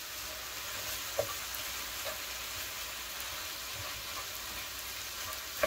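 Ground beef and sautéed onions and celery sizzling steadily in a nonstick frying pan. A wooden spoon knocks lightly against the pan a couple of times while stirring, and once more sharply near the end.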